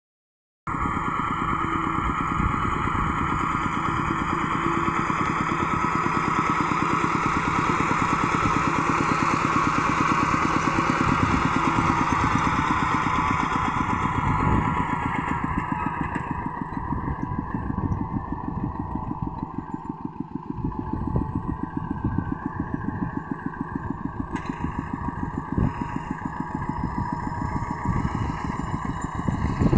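Small single-cylinder diesel engine of a two-wheel walking tractor running steadily with a rapid, even chug while it pulls a harrow through wet paddy mud.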